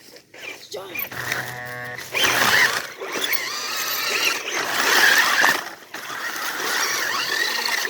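Small electric motors of RC vehicles whining and revving up and down over rough ground, with a short buzzy tone about a second in.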